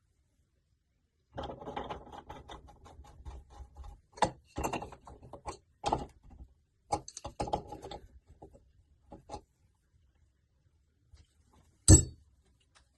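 Irregular clicks, rattles and knocks of hand tools and tap parts being handled, with one sharp knock about twelve seconds in.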